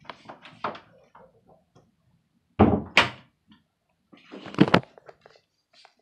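Handling noise from a hand moving right against a phone's microphone: rustling, then loud knocks and thuds, two together about two and a half seconds in and another cluster about four and a half seconds in.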